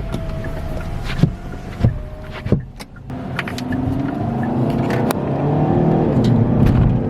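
Power windows whining shut, with a clunk as each one closes. Then the 2021 Kia Forte GT's turbocharged 1.6-litre four-cylinder accelerates, heard from inside the cabin through its resonator-deleted exhaust, rising in pitch and getting louder.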